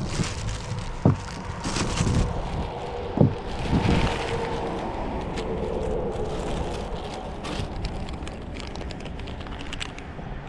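Hands working with bolts and parts on a boat: a few sharp knocks and clanks, about one, three and four seconds in, over steady background noise.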